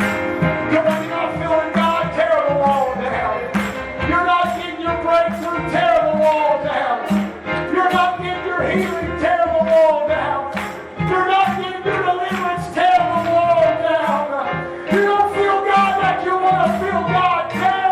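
Live church worship music with a steady beat and a gliding melody line, played for the altar call.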